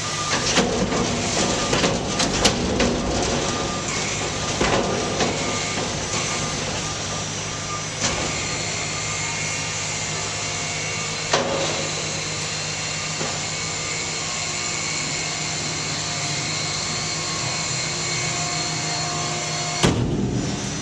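Steady hum of a cart dumper and baler infeed conveyor running, with paper trimmings clattering down onto the conveyor in the first few seconds and single knocks about 8, 11 and 20 seconds in.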